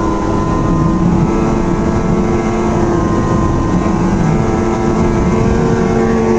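Ski-Doo Rev snowmobile engine running steadily while riding on a trail, holding an even pitch.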